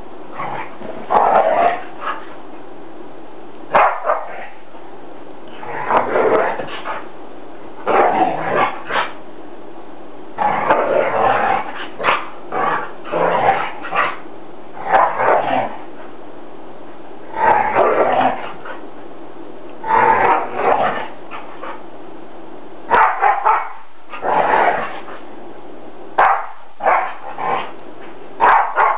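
Two dogs play fighting, growling and barking at each other in short bursts every second or two.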